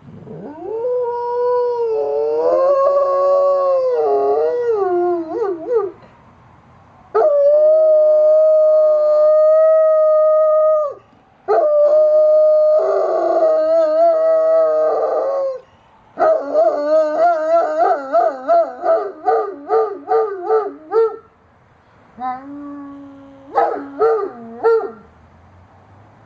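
German Shepherd howling in response to sirens: a run of long, loud howls of several seconds each, with short breaks between them. The later howls waver quickly in pitch, and near the end they break into shorter, choppy calls.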